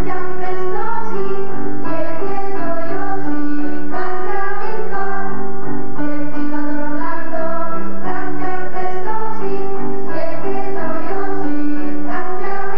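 A group of schoolchildren singing a song together, the melody carried in sustained, changing notes.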